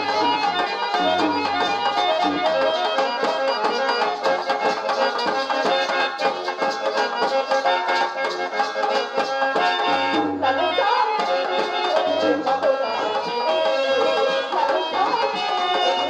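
Traditional Indian stage music: a held, reedy melody over steady hand-drum strokes, accompanying a dance, with a brief break a little after ten seconds in.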